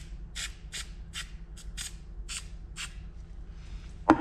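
Aerosol can of 3M Super 77 spray adhesive giving a series of short, quick spray puffs, about eight in three seconds, onto a model tree. Near the end there is one sharp knock as the can is set down on the wooden bench.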